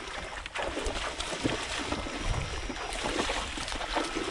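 Water splashing and sloshing as a person wades through shallow river water, legs pushing through it, with irregular splashes from the tips of electrofishing poles swept through the water.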